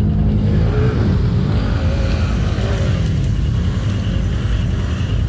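ATV engine running steadily on a trail ride, its revs rising and falling a little in the first few seconds.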